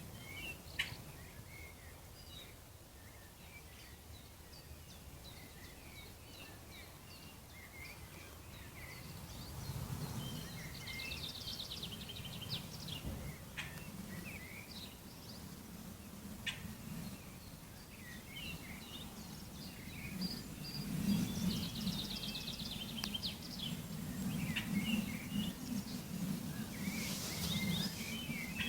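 Small birds chirping and twittering, with a few quick trills of rapidly repeated notes, over a low rumble that swells about a third of the way in and again in the last third.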